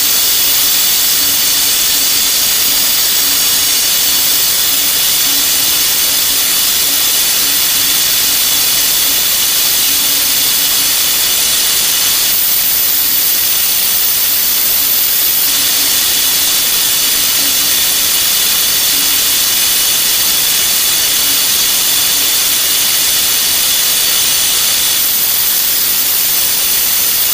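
Spindle of an HBS-S3040 desktop CNC machine running at high speed while machining: a steady, loud high-pitched whine over a hiss.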